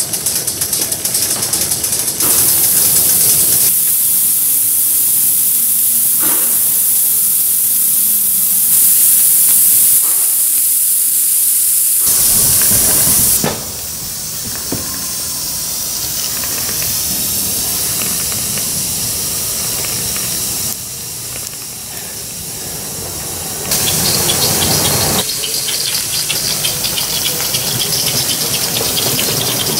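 Two Aster BR 86 Gauge 1 live-steam tank locomotives working a train double-headed, giving off a loud, steady hiss of steam that steps up and down in level several times.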